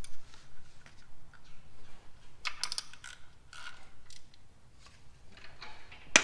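Light metallic clinks and rattles of a wrench and metal fittings being worked by hand on a transmission, followed right at the end by a sharp hammer tap on the metal.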